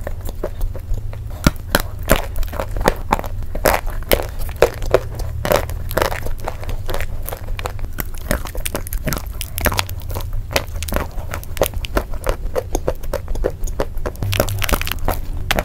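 Close-miked chewing of a mouthful of edible chalk and Turkestan clay: soft, dense crunching and crackling as the dry clay breaks up between the teeth, over a low steady hum.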